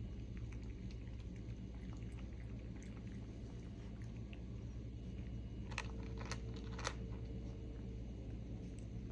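Steady low road rumble inside a moving car's cabin, with a quick cluster of three or four sharp clicks about two-thirds of the way through.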